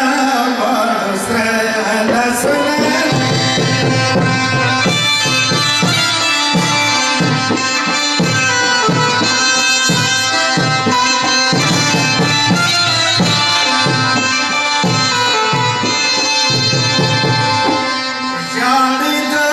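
Pashto folk band playing an instrumental: clarinets and harmonium holding a melody while two barrel drums (dhol) beat a steady rhythm. The drums come in a couple of seconds in and stop shortly before the end.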